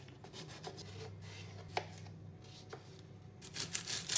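Kitchen knife slicing vegetables on a wooden chopping board: scattered short knife taps, with a quicker run of several near the end.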